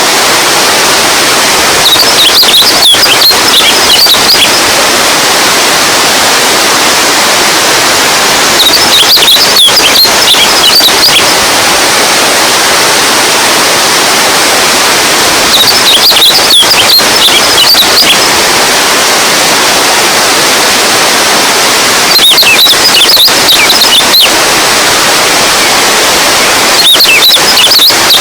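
Running water, a steady rushing stream. About every six to seven seconds, a burst of high chirps lasting a couple of seconds sits on top of it.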